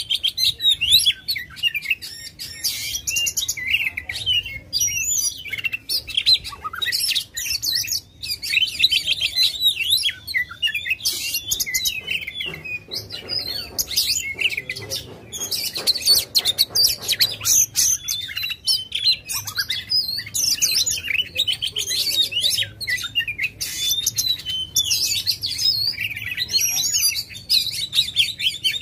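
Oriental magpie-robin (kacer) singing vigorously without pause: a fast, varied stream of whistles, chirps and clicking, rattling notes.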